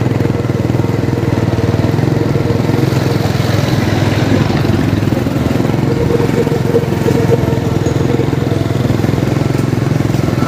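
Small motorcycle engine running at a steady cruising speed, close up, with road and air noise.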